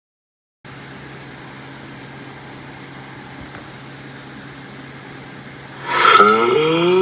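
A steady hum with hiss, then about six seconds in a sudden loud burst followed by a voice sliding upward in pitch.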